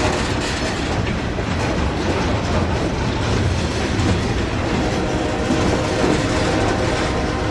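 Freight cars of a ballast train, steel open hoppers, rolling past close by: a steady rumble and clatter of steel wheels on the rails, with a clickety-clack rhythm.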